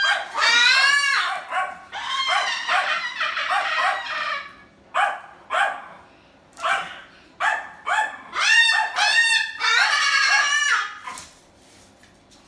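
Moluccan cockatoo giving rapid runs of short, loud, bark-like calls in several bursts, with brief pauses between them.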